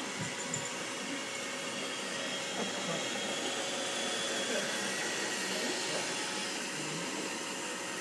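iRobot Roomba robot vacuum running over carpet: a steady whir of its motor and brushes with a faint high whine.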